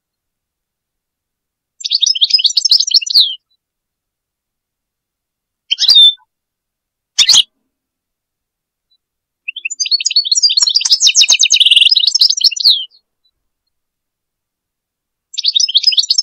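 European goldfinch singing in separate phrases of rapid, high notes. There are short phrases about 2, 6 and 7 seconds in, a longer phrase of about three seconds starting near 10 seconds, and another near the end, with complete silence between them.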